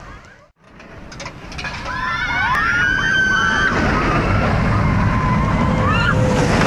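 Roller coaster riders screaming, several overlapping wavering screams, over the loud steady rush of the coaster train passing close by on its track.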